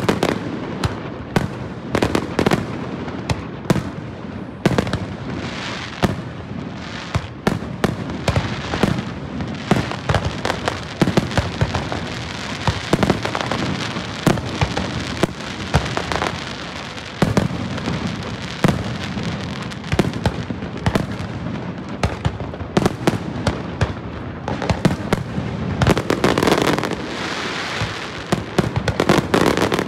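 Aerial fireworks display: shells bursting in quick succession, several sharp bangs every second over a steady crackle, with no let-up.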